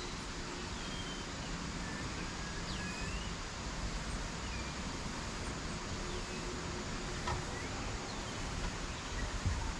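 Steady outdoor background hiss with low rumble, and several faint, short high-pitched chirps and whistles scattered through it, one swooping down and back up; a single sharp click sounds about seven seconds in.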